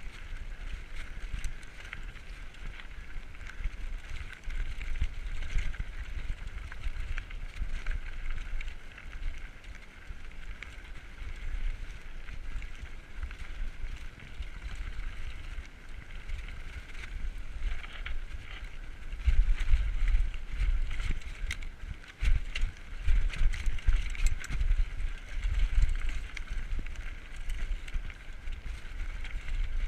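Diamondback Recoil 29er mountain bike riding fast over a rocky dirt trail: tyres crunching over stones and the bike rattling in a steady stream of clicks and knocks, with wind buffeting the microphone. It gets rougher and louder about two-thirds of the way in.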